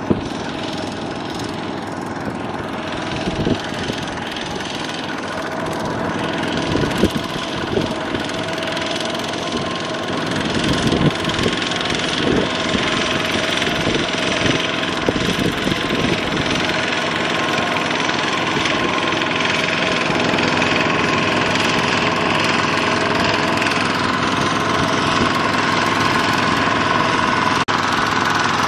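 Two-wheel walking tractor's single-cylinder diesel engine running under load as it churns through mud pulling a trailer, with irregular knocks and clanks in the first half. The engine gets steadily louder toward the end.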